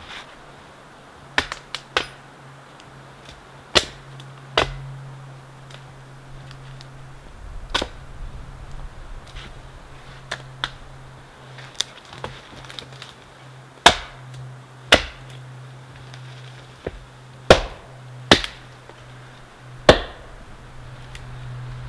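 Hatchet chopping firewood on a log: about fifteen sharp, irregular strikes of the axe into wood, some much harder than others.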